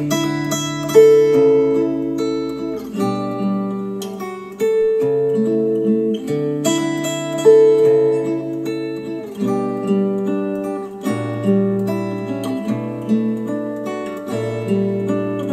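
Instrumental acoustic guitar music: plucked and strummed chords that ring and fade, changing every second or two.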